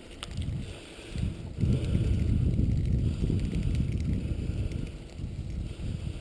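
Wind buffeting the microphone together with the rumble of wheels rolling over a gravel road at running-dog pace, getting louder about a second in.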